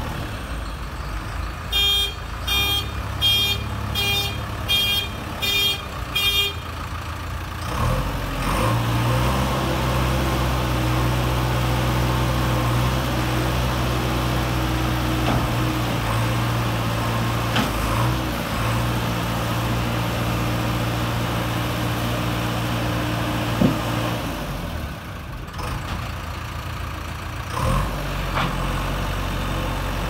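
JCB 3DX backhoe loader's diesel engine idling, with about seven evenly spaced electronic beeps in the first few seconds. Then the engine speeds up and runs under load for about fifteen seconds while the front loader arms are raised and lowered, with a couple of sharp knocks. It drops back to idle near the end.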